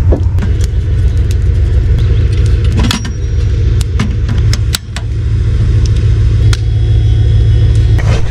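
A loud, steady low rumble with a brief dip about five seconds in, over a scatter of clicks and clatter as camping gear is handled at the back of a van.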